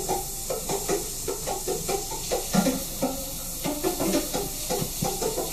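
Airbrush spraying a light coat of paint onto a model, a steady hiss of air, with a radio playing in the background.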